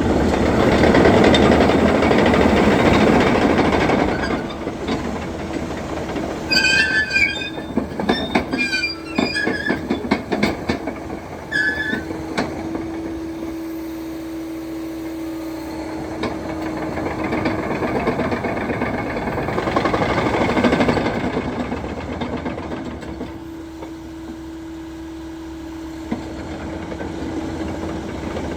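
Liebherr PR756 crawler bulldozer running and moving on its tracks: a steady engine and drive hum, loudest in the first few seconds, with squealing and clanking from the steel tracks between about six and twelve seconds in.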